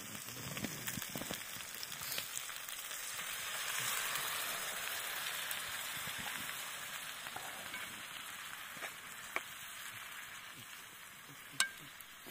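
Burbot pieces frying in a hot pan over campfire coals, sizzling as a sour-cream-and-water sauce is poured in. The sizzle swells over the first few seconds, then slowly dies down, with a sharp click near the end.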